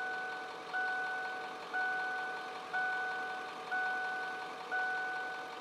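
A vehicle warning chime, a single-pitched bong repeating about once a second, each one fading before the next. It most likely comes from the 1996 Ford F-250 that has just been repaired.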